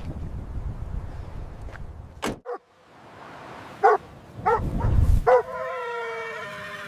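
German shepherd dogs barking three times, then one long, steady howl that carries on past the end. Before them there is a low rumbling background that stops with a sharp click about two seconds in.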